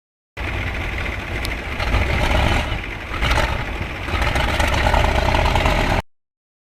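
Heavy diesel engine running, with a steady deep low rumble; it starts about a third of a second in and cuts off abruptly about six seconds in.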